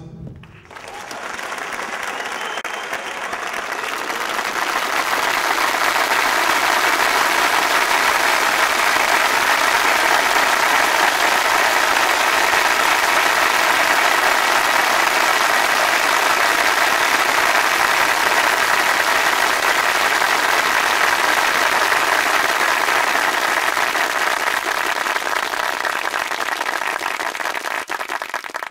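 Theatre audience applauding, swelling over the first several seconds, then holding steady until it breaks off abruptly.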